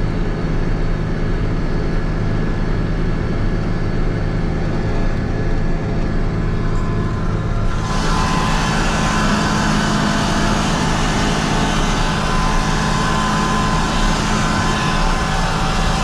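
Tractor engine running steadily under load while pulling a manure spreader with its web running. About halfway through, the sound abruptly turns brighter and noisier, with the engine note shifting.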